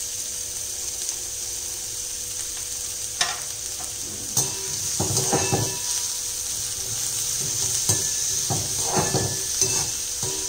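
Chopped onions and green chillies sizzling in hot oil in a kadai, being sautéed. A couple of sharp metal clinks come first, then from about five seconds in the metal ladle scrapes against the pan in repeated strokes as they are stirred.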